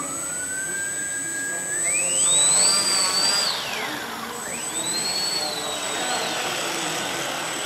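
Small electric pusher motor and propeller of an RC model aircraft whining as it spools up for takeoff. The pitch climbs steeply to a high whine, drops away about four seconds in, then climbs again and holds at full throttle.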